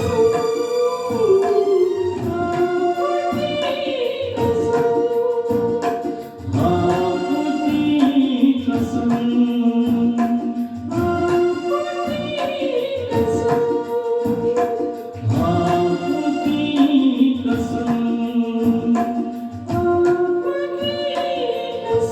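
Singing over backing music with a steady beat: a melodic vocal line without recognisable words.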